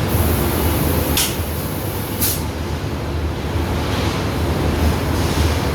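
Roof-tile painting production line running: a steady, loud low machine hum, with a few short sharp hisses about one and two seconds in.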